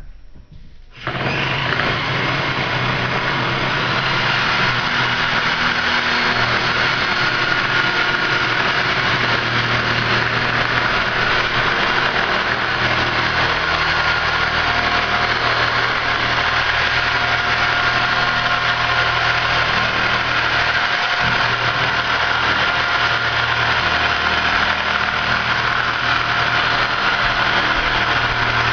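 Corded handheld power cutting tool running steadily as it slits along a thin-wall PVC pipe; the motor starts about a second in and keeps a constant hum.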